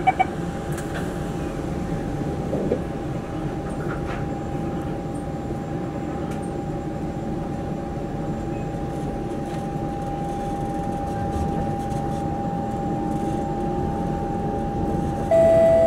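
Interior of a Singapore MRT train pulling away and running between stations: a steady rumble of wheels on rail with a steady motor whine, growing slightly louder as it gathers speed. Near the end a louder chime tone starts, the signal before the next-station announcement.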